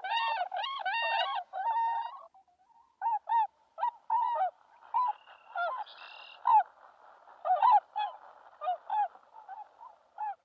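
Swans honking. A quick run of ringing honks comes first, then after a short pause shorter single honks, irregularly spaced.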